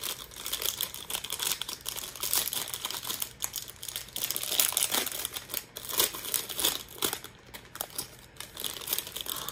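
Plastic blind-bag packet crinkling and tearing as it is ripped open by hand, then the inner plastic wrapper crackling as it is handled, in an irregular run of crackles and clicks.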